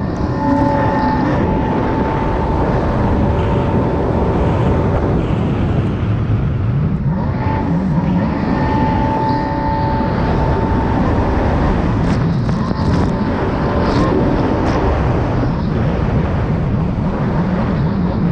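Stand-up jet ski engine running hard at speed, heard from the rider's helmet with water and wind rushing. A steady high whine rises above the noise now and then.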